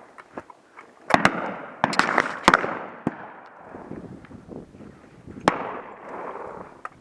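Side-by-side shotguns firing a quick run of shots at driven partridges: pairs of shots about a second and two seconds in, another about two and a half seconds in, and a single shot near the end, each with a short echoing tail. Fainter shots from other guns on the line sound in between.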